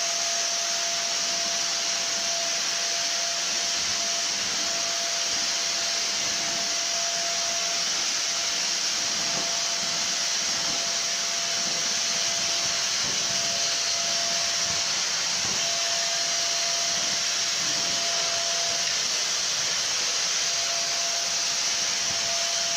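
Vacuum cleaner running steadily while being pushed around a floor: a constant rush of air with a steady motor whine over it.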